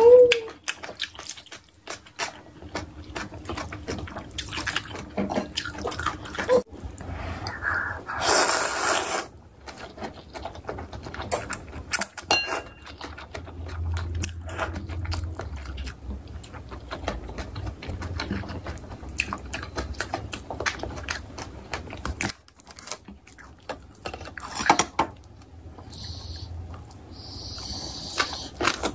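Close-up eating sounds of instant ramyeon noodles: wet chewing and many small mouth clicks, with one long, loud slurp about eight seconds in.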